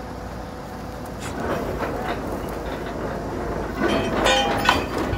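Truck-mounted borewell drilling rig running, its engine giving a steady low drone under irregular mechanical clattering, with a louder burst of metallic clatter and ringing about four seconds in.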